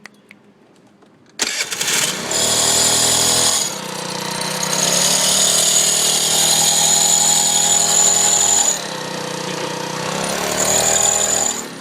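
50cc moped engine starting about a second and a half in, then revved three times, a steady high-pitched squeak sounding with each rev and dropping out as the engine falls back to idle. The squeak comes only on acceleration.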